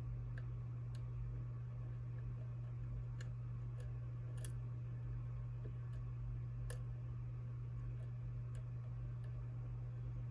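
Lock pick working the pins of a Ri-Key high-security lock cylinder: faint, irregular light clicks spaced a second or so apart, over a steady low hum.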